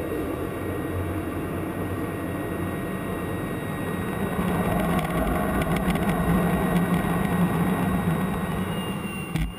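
F-16 fighter's jet engine and rushing air heard inside the cockpit: a steady rumble and hiss with a low hum, growing louder about halfway through. A brief knock comes just before the end.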